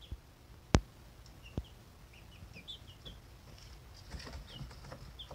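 Four-week-old chicks peeping in short, high chirps scattered throughout. A sharp knock about three-quarters of a second in is the loudest sound, with a softer one just after a second and a half, and a brief flurry of wing flapping about four seconds in.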